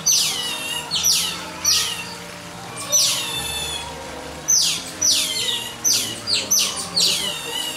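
Asian small-clawed otters chirping: a group calling in high-pitched, overlapping chirps that each slide steeply down in pitch, about two a second, with a short lull about halfway through.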